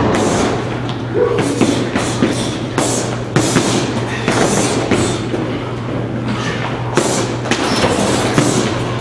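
Punches and kicks landing on hanging heavy bags: irregular thuds from several people striking at once, over background music.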